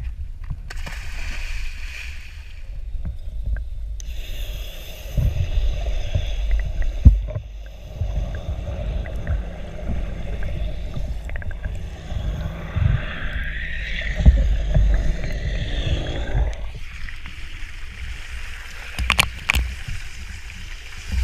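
Water rushing and splashing around a camera at the waterline as a snorkeler is towed on a line alongside a moving boat's hull, the camera dipping in and out of the water. A deep, steady rumble runs underneath, broken by a few hard knocks, the loudest about seven seconds in.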